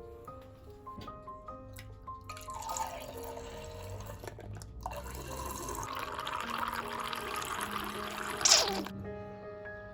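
Water running or pouring. It starts about two seconds in, breaks off briefly midway, grows stronger and stops suddenly near the end. Soft background music plays throughout.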